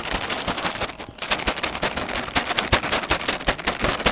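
Undergrowth and twigs crackling and snapping as a beater pushes on foot through dense woodland cover, a dense run of sharp crackles.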